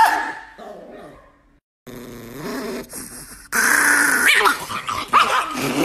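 Chihuahua growling, broken by abrupt cuts between short clips. A louder, hissier stretch of growling starts about three and a half seconds in.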